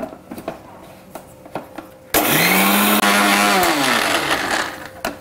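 Kitchen mixer grinder grinding dry flattened rice (poha) into flour. A few light clicks come first, then about two seconds in the motor starts with a quickly rising whine, runs loud and steady for a second or two, and winds down with a falling pitch.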